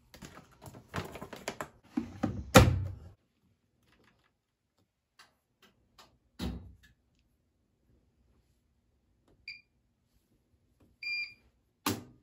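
Household handling noises and a door shutting with a loud thunk, another thunk a few seconds later, then two short high electronic appliance beeps.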